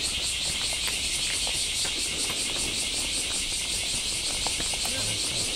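A chorus of cicadas shrilling high and loud, pulsing evenly at about four beats a second, with faint footstep clicks on the path beneath.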